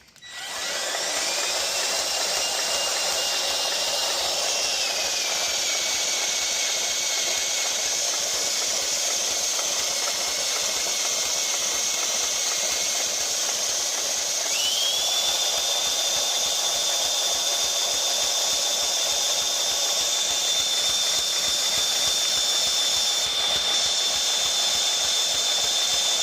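The four-stroke gas engine of a Scag 36-inch commercial walk-behind mower starts within the first second and runs steadily, with a high whine. About 14 seconds in, the whine steps up in pitch as the engine speeds up. This is the engine a customer reported for knocking, and it sounds a little funny.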